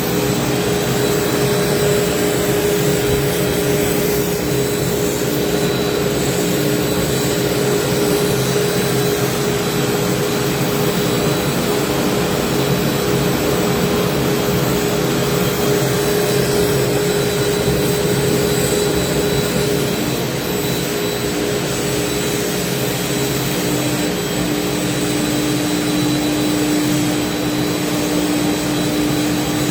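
CNC router running steadily as it routes slot car track parts: a constant hiss with a steady hum in it, whose tone shifts a little lower about two-thirds of the way through.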